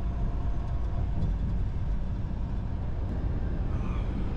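Semi-truck driving down the road: a steady low rumble of engine and road noise.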